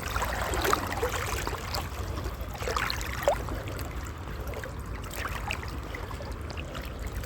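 River water sloshing and trickling around legs wading through it, with small splashes scattered throughout and a steady low rumble underneath.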